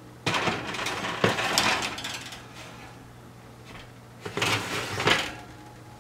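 Metal baking sheets scraping and clattering against the wire oven racks as they are slid in, in two bursts: one starting about a third of a second in, the other just after four seconds.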